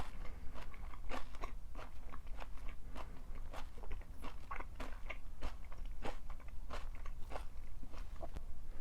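Crunchy chewing of stir-fried pork and napa cabbage: crisp bites and crunches repeating irregularly, several a second.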